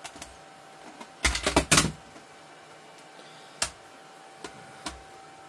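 Computer keyboard keystrokes: a quick run of several key presses a little over a second in, then three single key taps spaced apart.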